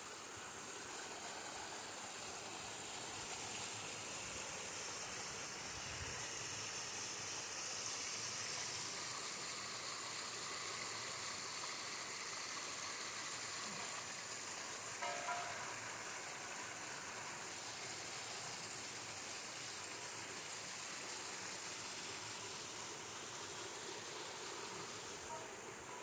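Small waterfall splashing into a rocky pool: a steady, even rush of falling water, with one brief sharper sound a little past the middle.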